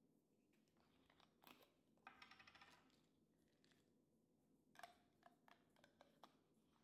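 Very faint handling of a supplement jar: a brief rattle of pills shaken inside it about two seconds in, then scattered clicks as the plastic cap is twisted open.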